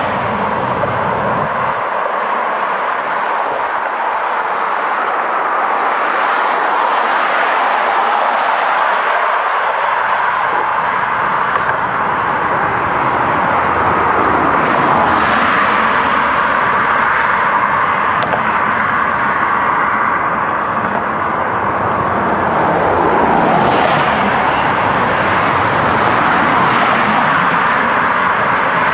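Steady drone of freeway traffic running close by, swelling briefly about two-thirds of the way through.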